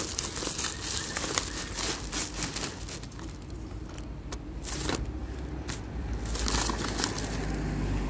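Thin plastic carrier bags crinkling and rustling in irregular crackles as they are handled and packed with groceries. A low rumble builds up in the last couple of seconds.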